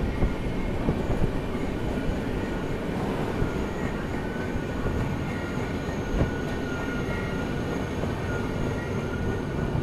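Double-decker passenger train running slowly as it brakes: a steady rumble from the wheels on the track, with a faint, thin, high squeal coming in from about three or four seconds in.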